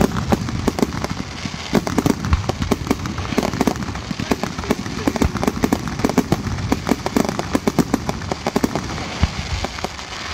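Fireworks going off in a rapid, dense string of bangs and crackles, with aerial bursts exploding one over another.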